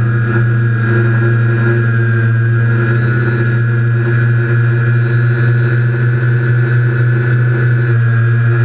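TBS Discovery quadcopter's electric motors and propellers running steadily, heard from the onboard GoPro. A loud, even hum with a strong low tone and a thinner whine above it.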